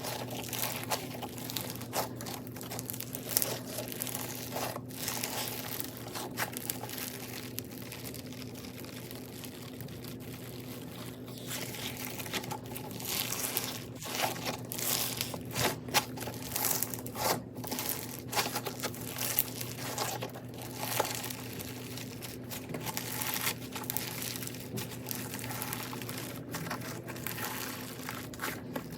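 Bead-packed crunchy slime being squeezed and pressed, giving dense, irregular crackling and crunching as the beads pop and grind, busiest in the middle of the stretch. A steady low hum runs underneath.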